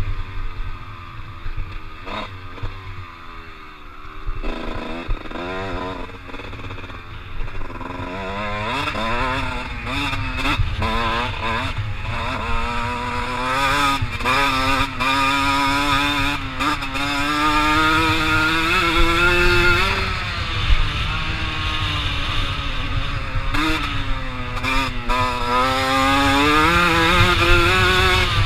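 Kawasaki KX125 two-stroke 125 cc dirt bike engine, revving up and down over and over as it is ridden, heard from the rider's helmet. It is quieter for the first several seconds and louder from about eight seconds in.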